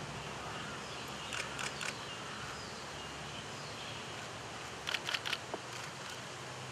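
Camera shutters firing in two quick bursts of several shots each, about a second and a half in and again about five seconds in, over steady background noise.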